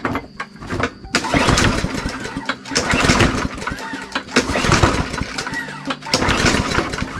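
Hyper Tough push mower's small engine being pull-started on its recoil cord, several pulls in a row, cranking without catching. The engine has spark and compression but is starved of fuel.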